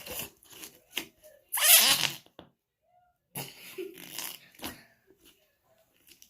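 Putty-like slime being squeezed and pressed by hand, giving a run of short squelching, fart-like squishes; the loudest is about two seconds in.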